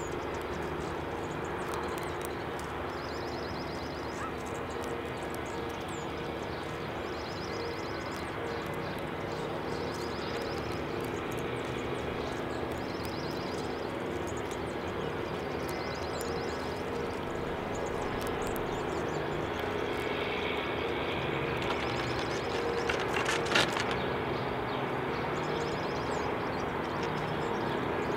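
Steady engine drone with a fixed low hum, growing louder over the last third. Short, high bird calls repeat about every two seconds, and there is one sharp click about 23 seconds in.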